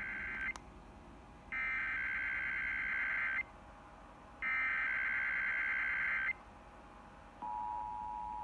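Emergency Alert System SAME header: three buzzy digital data bursts, the first ending about half a second in and the next two lasting about two seconds each with a second's gap between them. About seven and a half seconds in, the steady two-tone EAS attention signal starts, opening a Required Monthly Test.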